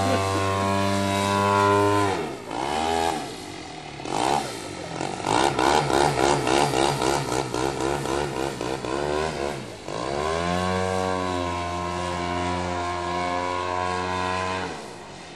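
Engine of a radio-controlled scale Curtiss Jenny biplane in flight, running steadily at high throttle at first. About two seconds in it is throttled back and drops in pitch to an uneven, throbbing drone. About ten seconds in it is opened up again to a steady note, which eases off near the end.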